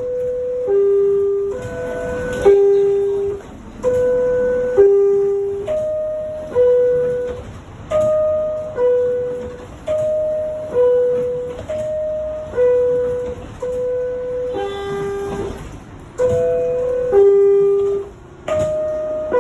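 NYC subway R62A car door chime: a two-note descending electronic chime repeated over and over, about every two seconds, the middle ones pitched a little higher. It is the warning that the doors are about to close.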